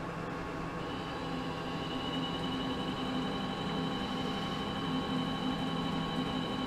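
Mini lathe running in reverse under power, its motor and drive giving a steady hum with a high whine that comes in about a second in, as the spindle backs a 2-56 tap out of the brass workpiece.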